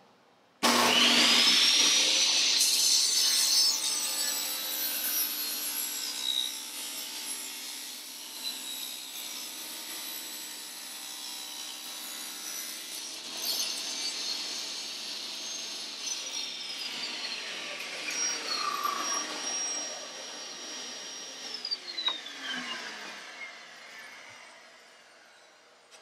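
Table saw switched on about a second in, its whine rising as the blade spins up, then running while it rips a thin strip off a wooden board; near the end it is switched off and the whine falls away as the blade winds down.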